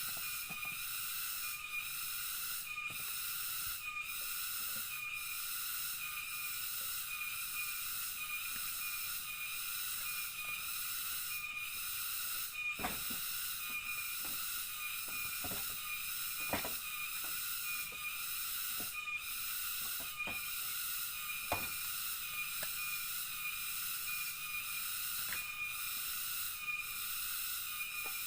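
Rainforest insect chorus, cicadas buzzing in a steady high drone that pulses in a regular rhythm, with a few sharp knocks scattered through it.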